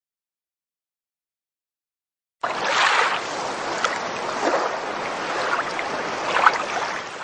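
Silence, then about two and a half seconds in a steady rushing noise, like running water, starts abruptly and carries on with a few brief louder flicks, stopping just after.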